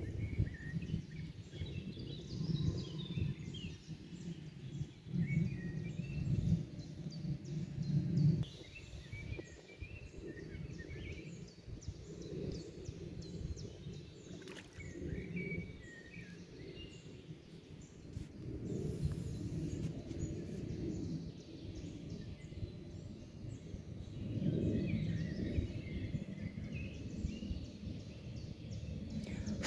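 Songbirds singing, several short chirping songs overlapping, over an uneven low rumble that swells and fades.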